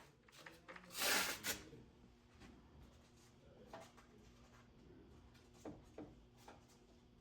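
Light handling sounds with the grinder stopped: a short rubbing scrape about a second in, followed by scattered faint taps and clicks.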